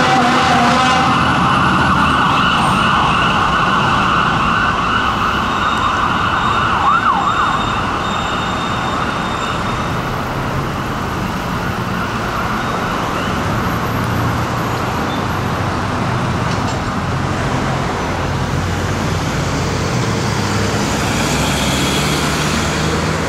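Fire-apparatus siren sounding as the rescue truck responds, loud at first and then dying away after about eight seconds, over vehicle engine rumble and passing traffic.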